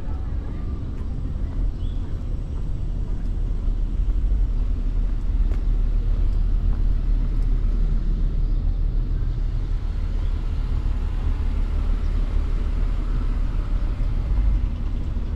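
Steady low rumble of city street background noise.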